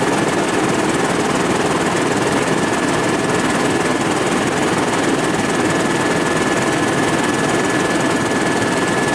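Helicopter in flight, heard from inside the cabin: the engine and rotor din runs steady and loud, with a constant high whine above it.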